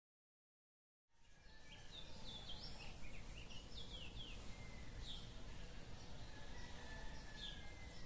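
Outdoor ambience that fades in about a second in: small birds chirping in short, quick, downward-sliding calls over a steady low rumble of background noise.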